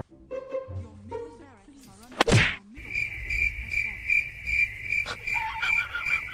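A sudden loud whoosh about two seconds in. Then a steady high chirping starts, repeating about two to three times a second, like crickets.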